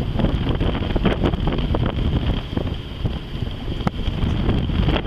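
Wind buffeting the microphone on a sailing yacht under way, a loud uneven rumble with a steady hiss and a few sharp ticks.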